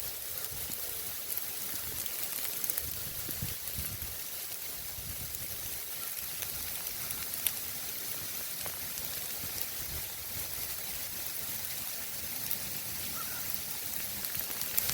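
Sleet falling steadily: a dense hiss of ice pellets with scattered sharp ticks as they strike.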